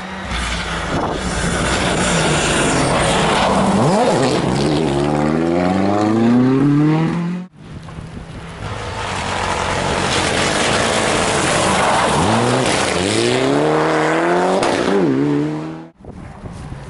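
Rally car engines accelerating hard, the pitch climbing and dropping sharply with each gear change, in two separate passes that break off abruptly.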